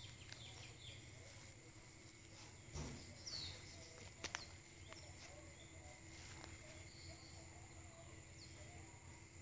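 Faint outdoor ambience near silence, with a few brief bird chirps and a faint steady high tone. A soft thump comes about three seconds in, then two sharp clicks about a second later.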